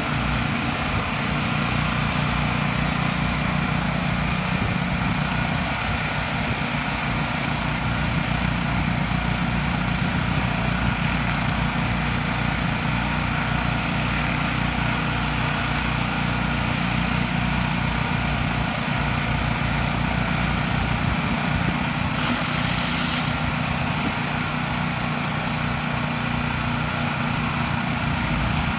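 Pressure washer engine running steadily, mixed with the hiss of high-pressure water spraying from rotating surface cleaners onto concrete. About 22 seconds in there is a brief louder hiss.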